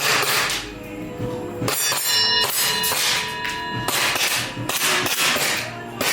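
Background music: sustained tones with sharp, ringing hits about every second or so.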